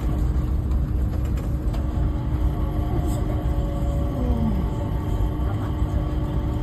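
Changi Airport Skytrain, a rubber-tyred automated people mover, running along its guideway: a steady low rumble with a constant hum.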